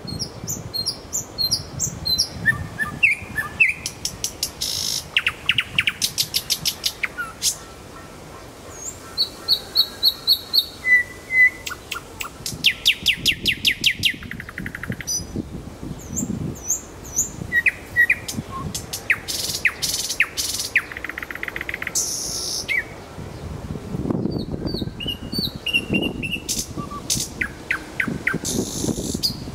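Nightingale singing: a run of varied phrases, fast dry rattling trills alternating with short clear whistled notes, each phrase separated by a brief pause.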